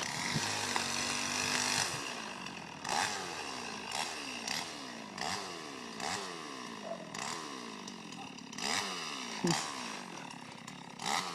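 Chainsaw running, its engine speed rising and falling again and again, with short louder surges every second or so while felling a tree.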